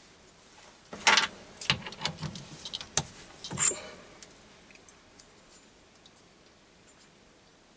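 A quick run of sharp metallic clicks and clanks from about one to four seconds in, as the machined bearing housing is taken off the stopped lathe and handled, followed by a few faint ticks.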